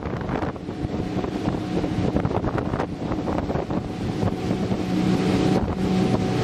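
Outboard motor of a rigid inflatable boat running at low speed, a steady hum that grows a little louder about two-thirds of the way through, with wind buffeting the microphone.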